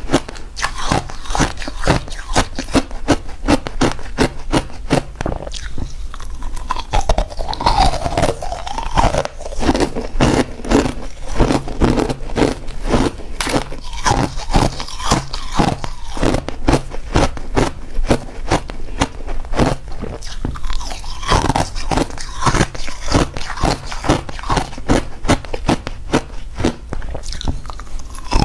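Crushed ice being bitten and chewed, close-miked on a clip-on microphone: a rapid, unbroken run of sharp crunches.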